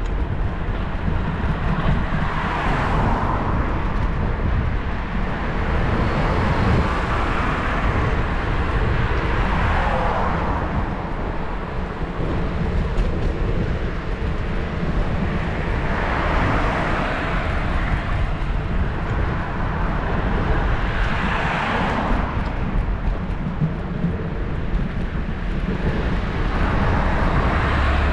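Road traffic passing a moving bicycle: several cars swell and fade one after another. Underneath runs a steady low rumble of wind and road noise on a GoPro's microphone.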